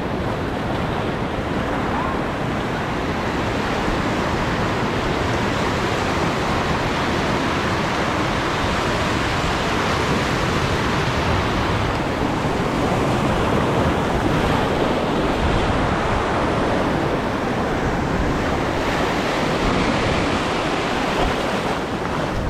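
Steady sound of surf washing over a shallow reef, with wind noise on the microphone.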